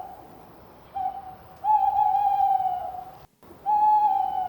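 Owl hooting: a short hoot, then two long, steady hoots at one pitch.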